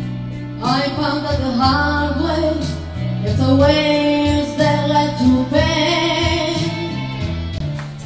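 A woman singing a song into a microphone over electronic keyboard accompaniment with a bass line and a steady beat. Her voice comes in about a second in and holds long notes.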